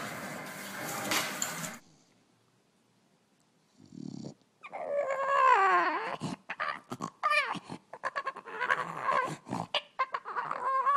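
Dog whining and grumbling in a run of drawn-out calls that slide up and down in pitch, starting about halfway through. Before it there is a brief stretch of noise and then a couple of seconds of near silence.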